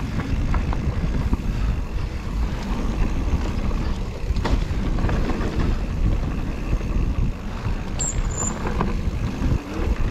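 Mountain bike riding a dirt singletrack trail: a steady rumble of tyres over the ground with wind on the microphone, and a couple of sharp knocks from the bike, about four and a half and eight seconds in.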